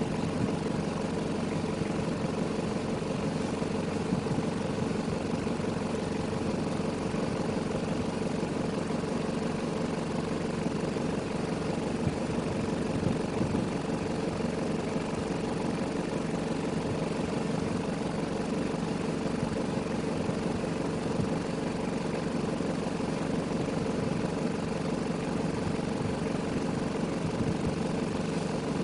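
Vehicle engine idling steadily with the brake on, a constant hum without revving.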